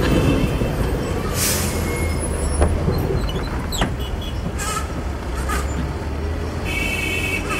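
City bus running at a stop with a steady low engine rumble, two short hisses of air from its brakes and doors, and a few clicks as the doors open. A steady high tone comes in near the end.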